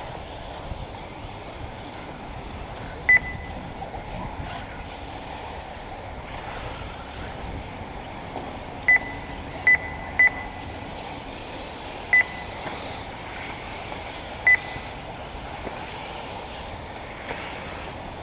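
Six short, loud electronic beeps at irregular intervals, the race lap-timing system signalling RC buggies crossing the timing line, over a steady rushing background noise.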